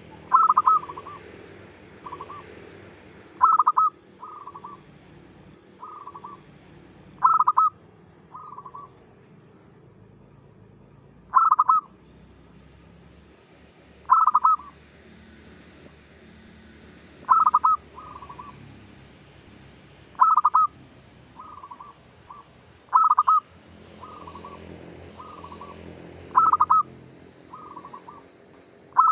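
Local zebra dove (perkutut) cooing its song: a phrase about every three seconds, each a loud opening coo followed by two or three softer, shorter notes, about ten phrases in all.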